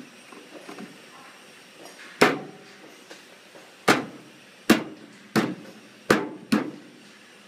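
Six sharp knocks over about four seconds, the later ones coming closer together: a white plastic elbow pipe being struck by hand to seat it on the combine harvester's sheet-metal outlet spout.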